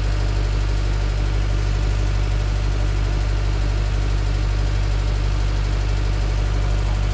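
An engine on a fishing boat running steadily, a low even drone that does not change in pitch or level.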